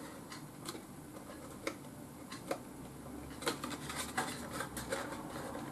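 Faint handling of paper and cardstock: soft rustling with scattered small clicks and ticks as fingers press a glued, folded cardstock circle onto a small folded paper box.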